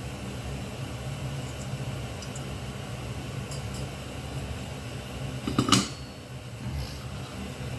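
A steady low electrical hum with a faint high whine, broken about five and a half seconds in by a brief loud clatter.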